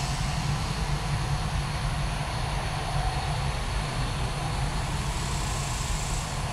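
Dassault Mirage 2000's single SNECMA M53 jet engine running at low taxi power as the fighter taxis: a steady low rumble with a hiss over it.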